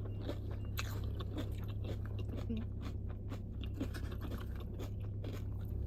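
A person chewing a bite of a Subway footlong topped with Doritos nacho chips, the chips crunching in a run of small irregular crackles, over a low steady hum.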